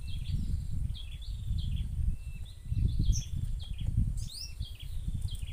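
Small birds chirping in quick short high notes, over a steady low rumble.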